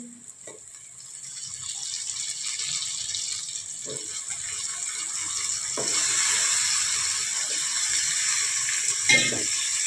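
Soaked soya chunks sizzling in hot oil and masala in a kadhai, a steady frying hiss that grows louder over the first few seconds and again about six seconds in, with a few faint knocks.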